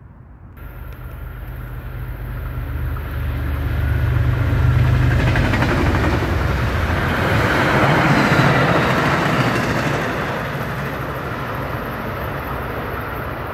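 Diesel-hauled MBTA commuter rail train passing close by: a low rumble builds, then the rushing clatter of wheels on the rails swells as the coaches go by and eases off near the end.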